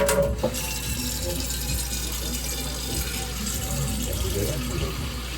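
Kitchen tap running steadily into a pot as it fills with water.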